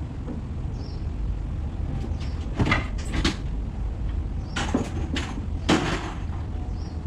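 Wooden cabinet panels knocking and clattering as a door panel is pulled off a built-in cabinet being dismantled and handled near a pile of boards: a run of sharp wooden knocks starting about a third of the way in, the loudest near the end.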